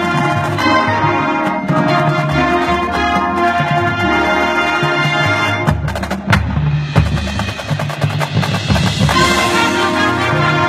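High-school marching band playing its show with drums and sustained chords. A few sharp percussion hits come about six seconds in, then a rising wash of sound builds near the end.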